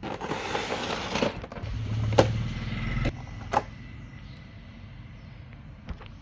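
Clear plastic wrapping and cardboard packaging rustling and crinkling as a diecast model car is handled out of its box. A low hum sounds for about a second and a half, with a sharp click about two seconds in and another a moment later, then only quieter handling.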